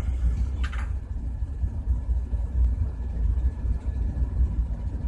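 A steady low rumble runs throughout. About half a second in there is a brief metallic scrape as the steel compressor valve assembly is handled on the bench.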